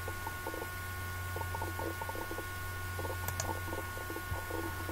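Steady low electrical hum with faint background noise and faint scattered low sounds, and a single sharp mouse click a little over three seconds in.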